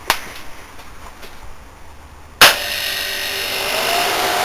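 Small window air conditioner switched back on: a light click near the start, then about two and a half seconds in a loud click and a sudden steady rush of blowing air, with a whine that rises and then holds as the fan motor comes up to speed.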